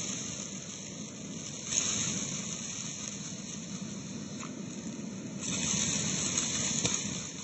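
Vacuum cleaner running with its crevice tool in carpet, sucking up coarse bath salt and rice grains that crunch up the hose. The grains get louder twice, once about two seconds in and again for a longer spell near the end.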